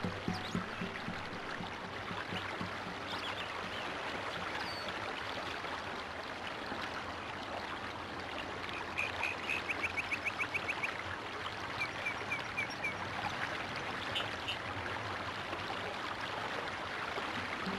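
Steady, even hiss of machinery running, with a quick run of short ticks about halfway through.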